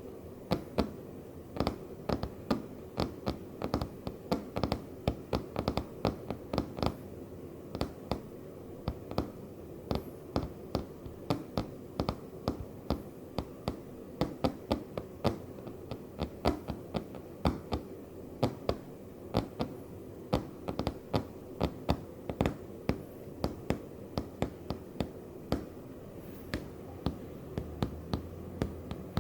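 Sharp taps on a floor, struck in short irregular groups like Morse code, over a faint steady hum.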